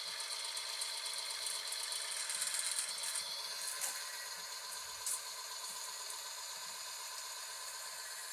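Motor-driven oil friction test rig running under extreme load, its spinning shaft grinding against the loaded bearing block with a steady howling, growling sound from metal-on-metal friction. A couple of short clicks come about four and five seconds in.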